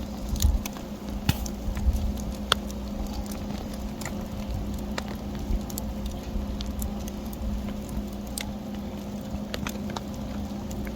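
Wood fire crackling, with irregular sharp pops and snaps over a steady hiss and a faint low hum.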